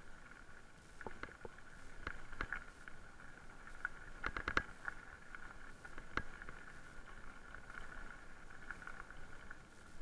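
Electric mountain bike rolling over a gravel road: tyres crunching on loose stones and the bike rattling over bumps, under a steady hum. A quick cluster of sharp knocks comes about halfway through.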